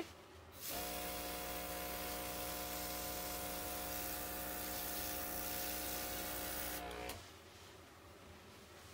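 Small airbrush compressor running with a steady hum and the hiss of air spraying temporary pet colour from the airbrush; it starts about a second in and cuts off about seven seconds in.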